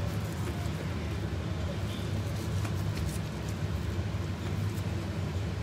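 Steady low mechanical hum that holds an even level throughout.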